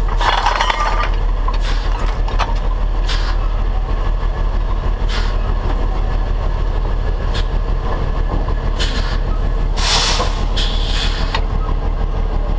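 Heavy diesel truck engine running steadily with a deep rumble, with several short bursts of hiss over it.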